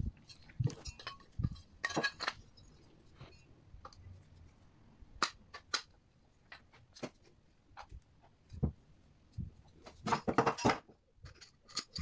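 Clicks, clinks and scrapes of a washing machine motor's metal end housings and wound stator being handled and fitted together by hand, with a louder burst of clattering near the end.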